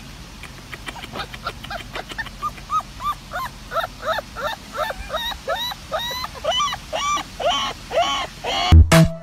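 A puppy giving a quick string of short, high-pitched yips, two or three a second, growing louder and higher toward the end. A heavy electronic beat cuts in just at the end.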